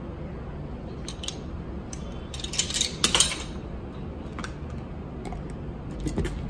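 Light clicks and a brief clatter of plastic measuring spoons being put down on a counter, loudest about two and a half to three seconds in, then a few soft knocks near the end as the plastic lid of a honey tub is handled.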